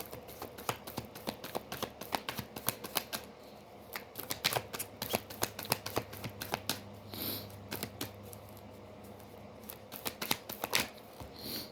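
Deck of tarot cards being shuffled by hand: a dense run of quick card clicks and flutters. It pauses briefly about four seconds in and thins out for a couple of seconds later on.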